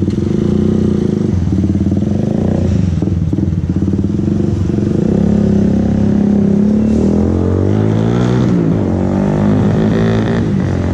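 Suzuki Raider motorcycle engine running loudly through a Hi Speed aftermarket muffler, steady at first, then rising and falling in pitch around eight seconds in as the throttle is worked.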